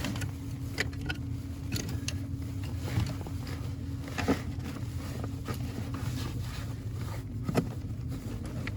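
Light clicks and knocks of a hood release cable being fed back through a hole, over a steady low hum.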